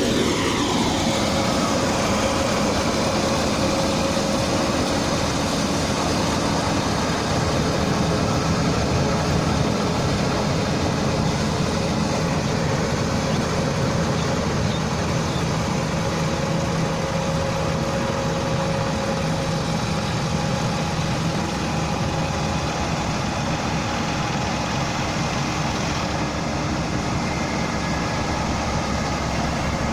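Rice combine harvester working at close range: its engine and machinery run steadily, a continuous mechanical drone with a steady hum in it.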